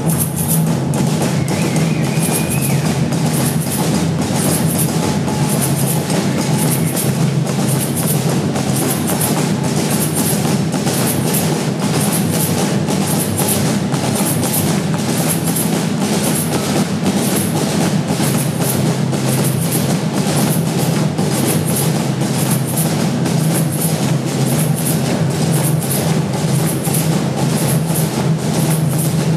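A drum group playing a steady, driving rhythm on hand drums, loud and continuous, inside a road tunnel.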